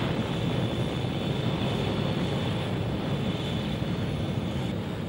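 Jet aircraft engines running on a carrier flight deck: a steady rushing noise with a thin, high, constant whine over it.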